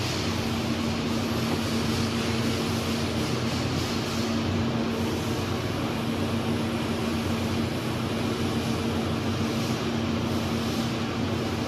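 Steady machine hum with an even rush of air-like noise and a constant low tone underneath, unchanging throughout.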